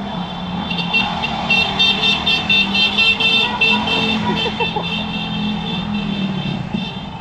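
Vehicle horn tooted in a rapid string of short beeps, several a second, over the steady hum of a car driving.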